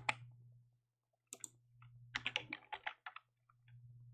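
Computer keyboard keys clicking: a single click, another about a second in, then a quick run of keystrokes between about two and three seconds in, over a steady low hum.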